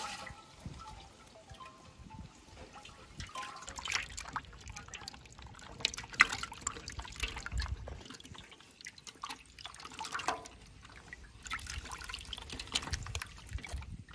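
Water sloshing and dripping in an aluminium basin as hands grab and stir a mass of climbing perch, in irregular wet splashes.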